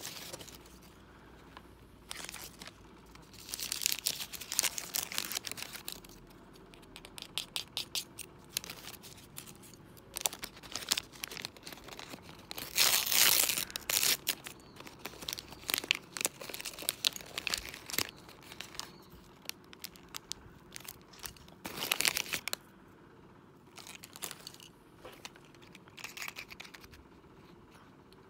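Thin plastic wrapper packets crinkling and crumpling as they are handled, in irregular bursts with small clicks. The loudest burst comes about halfway through.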